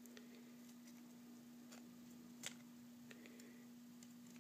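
Near silence with a faint steady hum, broken by scattered faint ticks as the iPhone logic board is pressed and slid into its housing, one sharper click about two and a half seconds in.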